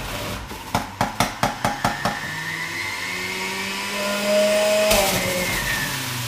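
Electric centrifugal juicer running on its high-speed setting while produce is pushed down the feed chute, its motor humming steadily. A quick run of sharp clacks comes about a second in, and the motor's pitch shifts later as the load changes, with a sharp knock near the end.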